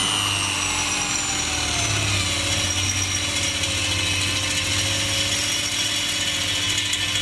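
Corded electric hand drill running under load, its twist bit boring into a painted steel bar. The motor whine sinks a little in pitch over the first couple of seconds, then holds steady.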